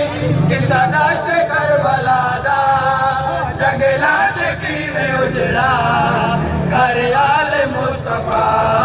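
Male voices singing a noha, a Muharram lament, together in chorus, the sung line running without a break.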